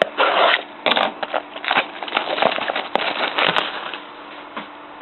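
Crinkling and tearing of trading-card packaging as a sealed box of cards is worked open by hand: a run of irregular crackles and sharp snaps, easing off near the end.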